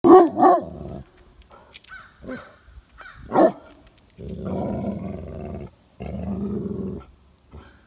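A dog barking and growling at a cat: two sharp barks right at the start, two more short barks around two and three and a half seconds in, then two long, low drawn-out calls, the first about a second and a half long and the second about a second.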